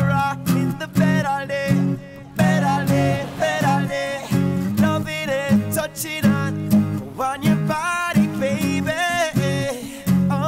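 Music: a song with guitar over a pulsing bass line.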